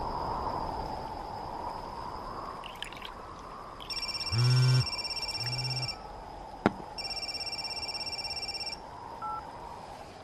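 Mobile phone ringing with a pulsing electronic ringtone: two rings of about two seconds each, starting about four seconds in, over a steady background hiss and a thin high tone.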